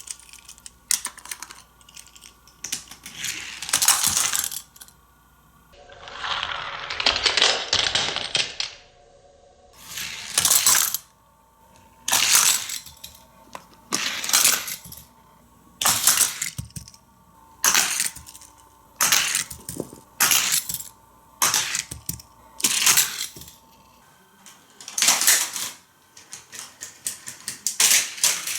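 Hot Wheels die-cast toy cars clattering and rattling along plastic stunt track, in a run of short, sharp bursts every second or two, with one longer rattling run about six seconds in.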